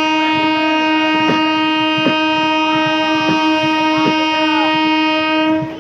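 Express locomotive's horn sounding one long, steady blast that cuts off near the end, over the knock of train wheels crossing rail joints.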